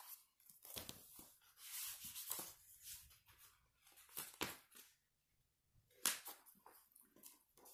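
Faint rustling and handling of hardcover picture books being closed and moved, with a few soft knocks, the sharpest about six seconds in.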